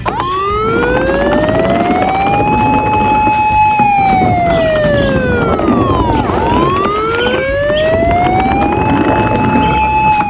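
Fire-truck siren wailing, slowly rising in pitch, holding, falling, then rising again, about six seconds to a cycle, over steady background noise.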